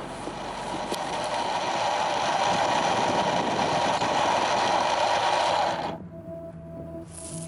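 Steady mechanical running noise from a motor, which cuts off abruptly about six seconds in, leaving a fainter steady hum.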